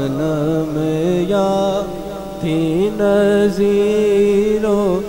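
Male naat reciter singing devotional verse in long, held notes that bend slowly in pitch, dipping briefly about two seconds in before going on.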